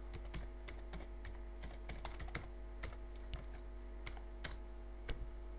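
Computer keyboard being typed on: an irregular run of light key clicks, over a faint steady electrical hum.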